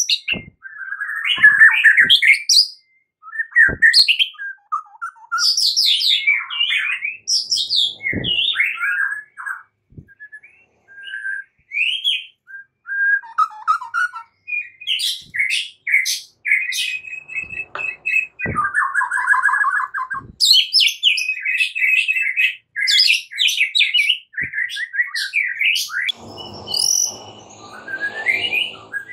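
White-rumped shama singing: a long, varied song of whistled phrases, rising and falling glides and fast chattering trills, broken by short pauses, with a few sharp clicks between phrases.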